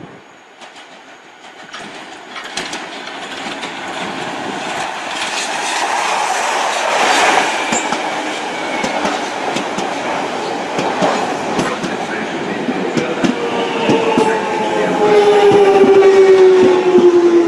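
London Underground Central line train (1992 stock) running into the station, its wheels clicking over the rail joints and growing louder as it nears. In the last few seconds its motors give a whine that slowly falls in pitch as the train brakes toward a stop.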